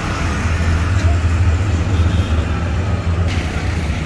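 A motor vehicle engine running, a steady low rumble, with street noise.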